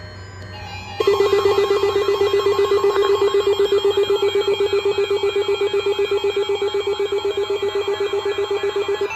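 NOAA weather alert radios sounding their alarms for a Required Weekly Test, starting about a second in: a loud, rapidly pulsing electronic buzz with a warbling siren-like tone over it.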